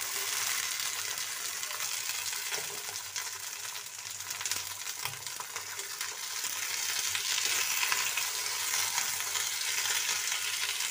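Green peas sizzling and crackling in hot oil in a kadhai with browned onions, just tipped in and being stirred: a steady frying hiss with fine crackles.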